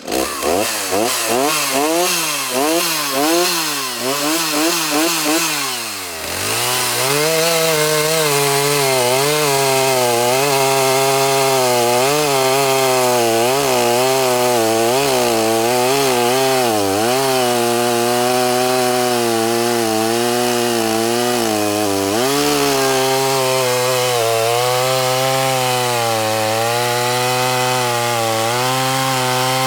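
Small two-stroke Stihl chainsaw revving up and down for the first few seconds. After a brief drop it is held at high speed, as when cutting through wood, with small wavers and a short dip about two-thirds of the way through.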